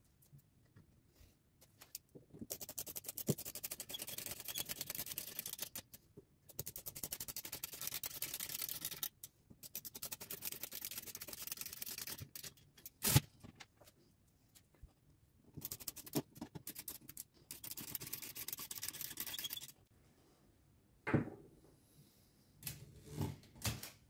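Olivetti Lettera 22 portable typewriter's mechanism ratcheting: several stretches of two to three seconds of fast clicking, with one sharp loud knock about halfway through and a few knocks near the end.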